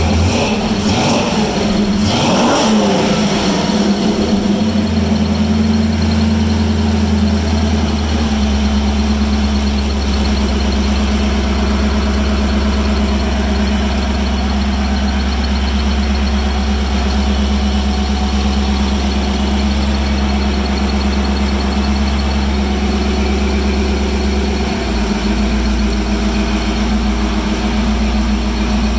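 Hot-rodded Ford 302 V8 with 351 Windsor heads, revved briefly twice near the start, then settling into a steady idle.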